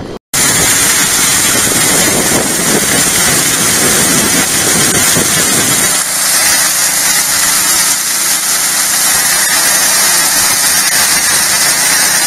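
A highbanker running, its water pump engine going steadily under water rushing through the sluice box. About halfway through the sound loses some of its low rumble.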